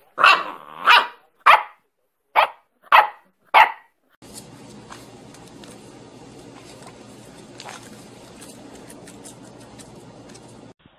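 Shar-Pei puppy barking: six short, sharp barks about half a second apart. They are followed by a much quieter stretch of steady low noise with a few faint light clicks.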